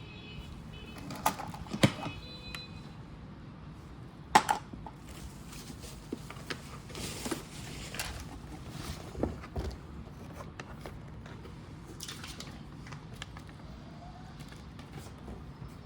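Scattered knocks, clicks and a brief rustle of handling, typical of unpacking a portable washing machine and its packaging, over a steady low background hum; the loudest knocks come about two seconds and four and a half seconds in.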